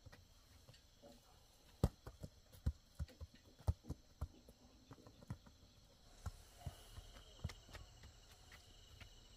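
Irregular knocks and clicks at about one or two a second, like footsteps on dry ground and brush. A faint steady high tone comes in about two-thirds of the way through.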